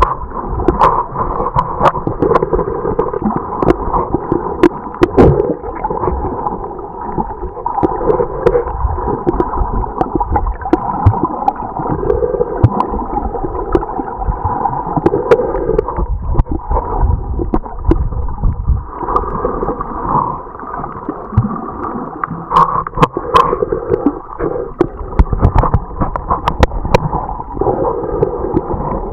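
Muffled underwater water noise picked up by a camera held below the surface: steady gurgling and sloshing of water moving around the camera, with scattered sharp clicks throughout.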